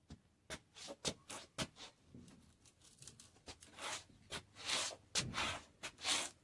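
Chisos No. 5 cowboy boots stepping and scuffing on a concrete floor: a quick run of sharp heel taps in the first couple of seconds, then several longer scraping slides of the soles.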